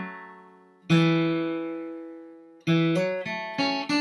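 Steel-string acoustic guitar with a capo, flatpicked slowly note by note as a lick is taught. About a second in, a low pair of notes is picked and left ringing. Near the end comes a run of single picked notes, about three a second.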